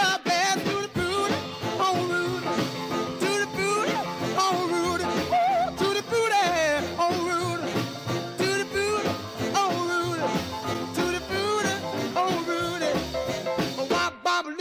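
A recorded song playing: a sung melody over a band with a steady beat, the backing track for a lip-sync performance.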